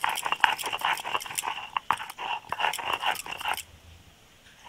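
Chopped onion being crushed between a cylindrical grinding stone and a flat stone slab (sil-nora). It makes a rapid, irregular crunching crackle as the stone is rolled and pressed back and forth, and stops about three and a half seconds in.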